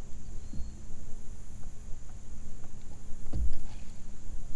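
Water and wind noise around a plastic sit-in kayak, with two dull knocks on the hull, one about half a second in and one about three and a half seconds in.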